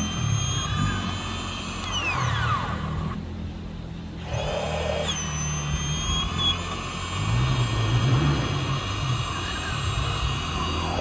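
A small electric motor running with a steady whine whose pitch shifts several times; the high whine drops out for about a second, three seconds in, then comes back.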